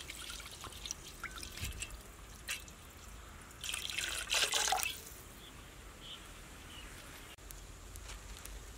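Milk pouring in a thin stream from a steel container into an aluminium pot, splashing and trickling into the milk already in it, louder for a second or so near the middle, then quieter.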